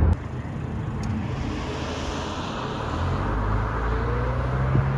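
Car on the move: steady road and engine noise, with a faint rising whine near the end.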